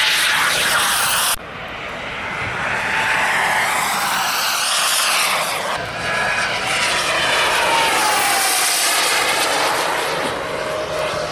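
Large radio-controlled model airplane flying past, its engine note falling in pitch as it goes by, twice, with a loud hiss.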